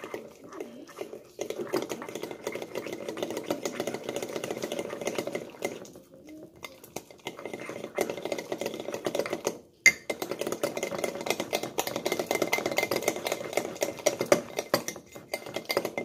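A utensil stirring a batter of butter, cocoa, egg and baking soda in a ceramic mug, in quick, steady clinking strokes against the mug's sides. The stirring pauses briefly about six seconds in, and there is one sharp tap a little before the ten-second mark.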